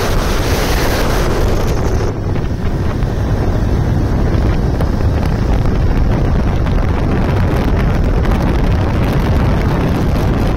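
Heavy wind buffeting on the microphone of a motorcycle riding at highway speed, a steady low rumble with no clear engine note. The higher hiss drops away about two seconds in.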